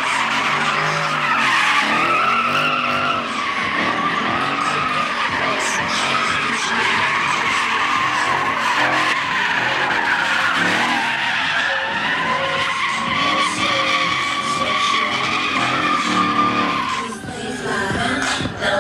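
Ford Mustang GT's 5.0 V8 revving hard while doing donuts, its rear tyres squealing continuously in a wavering howl as they spin. The squeal briefly breaks off near the end.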